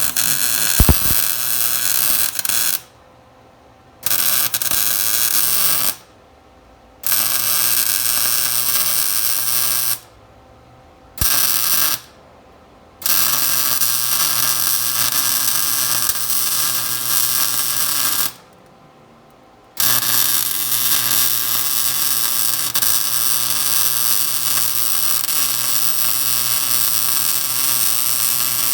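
Electric arc welding on a truck frame: a loud crackling, buzzing arc laid down in several short runs with pauses of about a second between them, then one long unbroken run over the last third.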